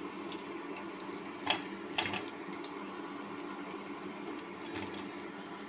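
Hot oil sizzling and crackling in a kadai of deep-frying chicken pakoras, with two light clicks of a metal spatula as the fried pakoras are scooped out.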